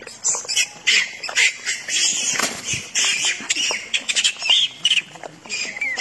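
Macaques giving many short, high-pitched squeals and screeches in quick clusters, some of them bending in pitch.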